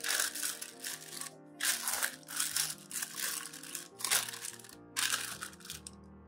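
Parchment paper crinkling in repeated bursts as hands press and fold it into a glass loaf pan. Background music plays throughout.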